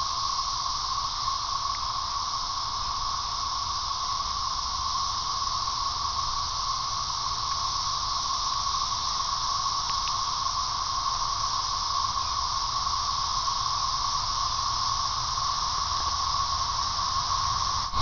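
Chorus of Brood XIX 13-year periodical cicadas, hundreds singing at once in a steady, near-constant drone.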